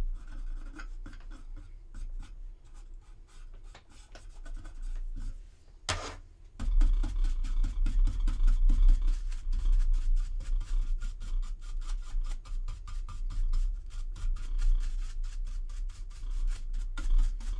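Hand-sanding a resin model part with sandpaper: light scratchy rubbing at first, then from about six seconds in a fast, dense run of back-and-forth strokes as a filled seam is smoothed.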